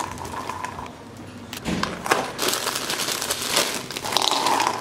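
Clear plastic bag crinkling and rustling in the hands as chocolate-covered popcorn is tipped out of it into a coconut-shell bowl, in irregular bursts of crackle about two seconds in and again near the end.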